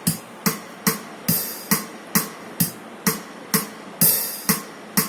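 Roland E-X30 arranger keyboard's waltz accompaniment rhythm playing: a steady drum-machine pattern in three-four time, a little over two beats a second, with a louder cymbal wash every couple of seconds.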